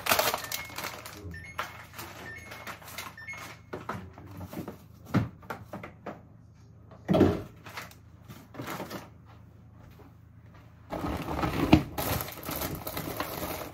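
Groceries being handled and put into a fridge: plastic food packets crinkling, small clicks, and two dull knocks about five and seven seconds in. From about eleven seconds in, a woven plastic shopping bag rustles as a hand rummages inside it.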